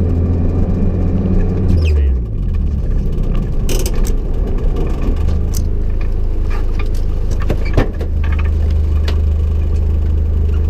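Rally car engine heard from inside the cabin as the car slows on a snowy road. Its note drops about two seconds in, then it idles steadily while the car stands. A few clicks and knocks come from inside the car, the sharpest about eight seconds in.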